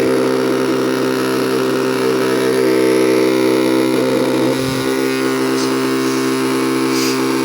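Small Arduino-controlled DC motor running steadily at speed setting 5, a continuous whine of several even pitches.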